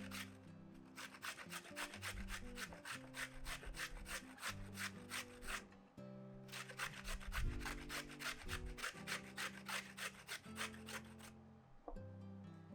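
Vegetables being worked on a wooden board with quick rasping strokes, about four a second, in two long runs with a short pause near the middle, over soft background music with sustained notes.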